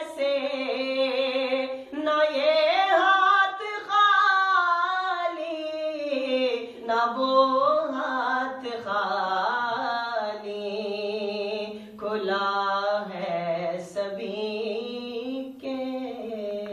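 A man singing a naat, an Urdu devotional song, solo and unaccompanied, in long held notes that waver and bend with ornaments, with short breaks between phrases.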